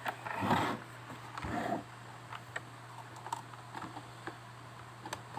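Faint handling rustle and small clicks while a network cable's RJ45 plug is being connected, over a steady low hum.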